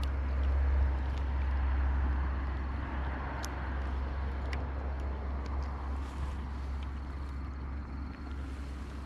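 Steady low outdoor rumble with a faint hiss, and a few light clicks around the middle.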